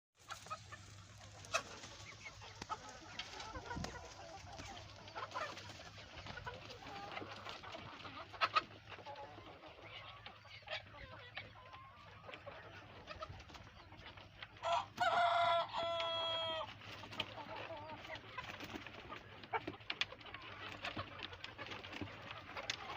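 Chickens clucking and calling, with many short sharp clucks throughout. About fifteen seconds in, one bird gives a loud drawn-out squawking call lasting under two seconds.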